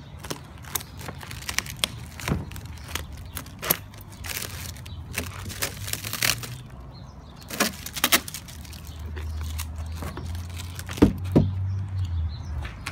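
Scissors snipping and hands tearing and peeling plastic wrap and foam packing off a carbon-fibre trunk lid, with irregular crinkles, snaps and crackles. A low rumble sits beneath, swelling in the last few seconds, when the sharpest snaps come.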